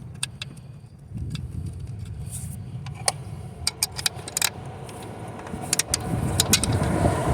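Irregular metallic clicks and clinks of bolts and a hand tool being handled while the alternator's mounting bolts are put back on, over a low rumbling noise that grows louder near the end.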